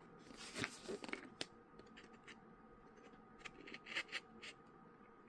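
A sharp blade slicing through packing tape and cardboard on a box, in short scraping cuts and clicks: one cluster in the first second and a half, another around four seconds in.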